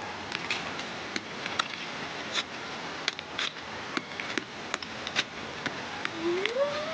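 Irregular sharp clicks and ticks, one or two a second, over a steady hiss, with a short rising tone near the end.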